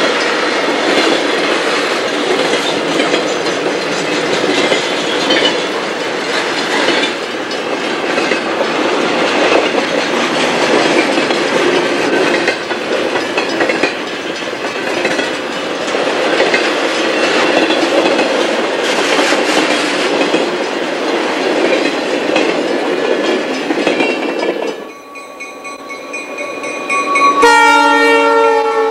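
Freight cars rolling past at close range: a steady, loud rumble and rattle of steel wheels on rail. Near the end, after a brief quieter moment, diesel locomotives pass and a multi-note locomotive horn sounds.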